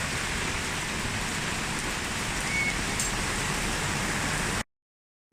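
Steady rain, an even hiss, which cuts off suddenly to dead silence about four and a half seconds in.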